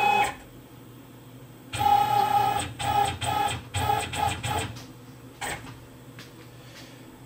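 Tormach 15L slant lathe's axis drive whining in about six short bursts as the slide is jogged manually in small steps. A single sharp click follows later.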